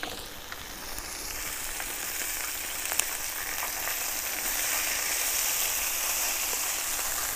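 Raw pork sausages and oiled vegetables sizzling in a large round pan over a wood fire, turned over with a wooden spatula. The hiss grows louder after the first second, with one sharp click about three seconds in.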